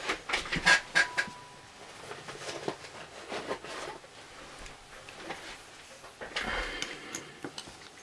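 Handling noise of small lock tools and parts being picked up and set down: a few sharp clicks in the first second, scattered small clicks after, and a longer scraping rustle about six and a half seconds in.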